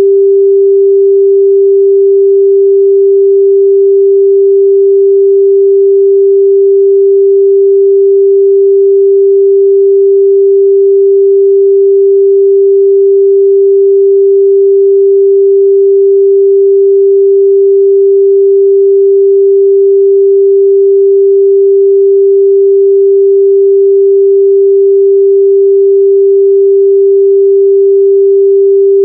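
A steady, loud 394 Hz sine-wave test tone, one pure pitch held without a break.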